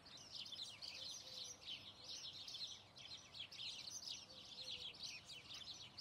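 Faint chorus of small birds, many quick high chirps overlapping without a break.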